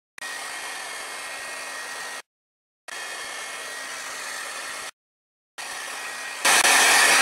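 Craft heat gun blowing steadily over a wet watercolor-crayon page to dry it, a steady airy whoosh with a faint high whine. It cuts out abruptly three times and gets much louder about six and a half seconds in.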